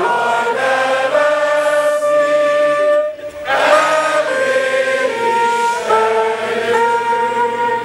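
A woodwind playing a slow melody of long held notes through a public-address microphone, with a short break about three seconds in.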